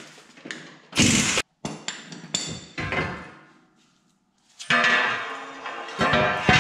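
Metal clanking and clinking as tools work loose the steel front bumper of a Humvee: a run of knocks with a loud clatter about a second in, a short lull, then a longer ringing metallic clatter near the end.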